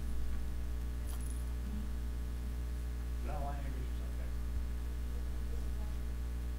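Steady electrical mains hum, with a brief metallic jingle about a second in and a few faint spoken words a little past three seconds.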